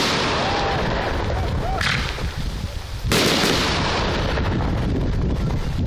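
Aerial firework shells bursting: a sharp loud bang about three seconds in and a smaller report near two seconds, over a continuous rumble of echoing detonations.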